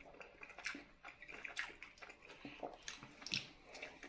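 A person chewing a bite of toasted egg-and-cheese pie close to the microphone: faint, irregular wet mouth clicks and smacks, with a sharper click a little after three seconds in.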